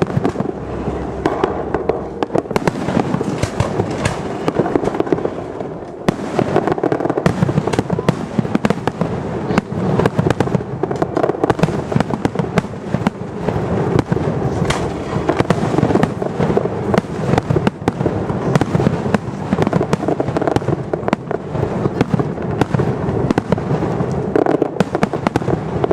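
Fireworks display: a dense, unbroken barrage of bangs and crackling shell bursts, many reports overlapping one another.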